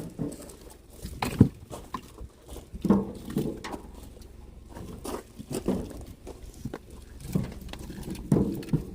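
Short pieces of split oak firewood knocking and clattering against each other as they are handled and loaded, in a run of irregular wooden knocks.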